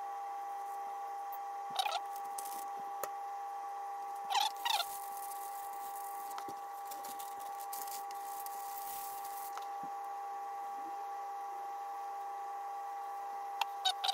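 A steady high whine at one pitch runs throughout. Over it come a few short squeaks as the salted squid is handled, and newspaper rustles for several seconds in the middle.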